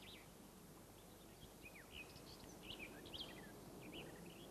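Faint, scattered chirps of small birds, with one short falling whistle about a second and a half in, over low background hiss.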